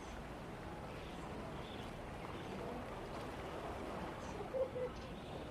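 Outdoor street ambience: a steady background hum with faint, indistinct voices of passers-by, and two short, louder tones close together about four and a half seconds in.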